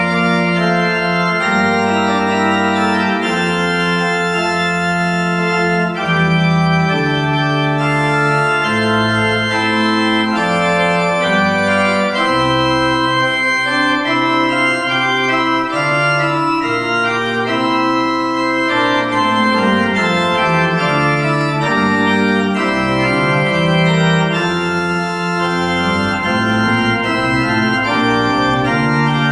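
Church pipe organ playing a polyphonic piece: full sustained chords that change every second or two over a moving bass line.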